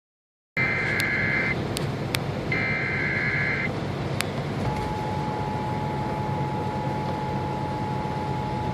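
Emergency Alert System tones received over AM radio. Two short, harsh bursts of the digital SAME header data come first, then about four and a half seconds in the steady attention tone begins and holds. A hiss of radio static with occasional crackle clicks runs underneath.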